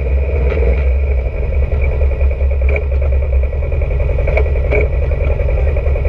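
Polaris RZR side-by-side's engine running at idle as the machine creeps to a stop, a steady low rumble with a steady high whine over it. A few light rattles and clicks from the chassis about halfway through.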